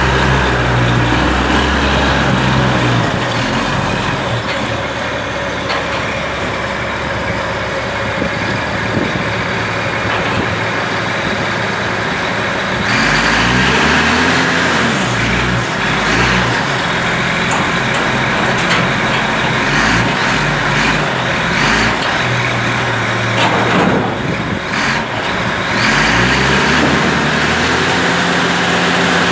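Diesel engine of a container reach stacker running under load as it handles a container, revving up about halfway through and again near the end.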